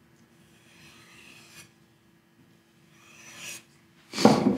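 A knife blade drawn in long strokes along a bare leather strop, two soft swishing strokes, then a brief, much louder sound near the end. This is the stropping stage, deburring the edge after the stones.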